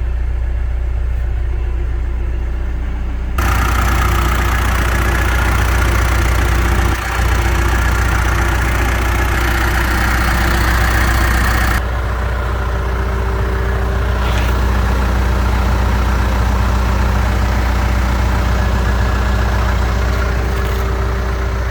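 John Deere 315SG backhoe loader's diesel engine running steadily, with a louder, harsher stretch from about three to twelve seconds in before it settles back.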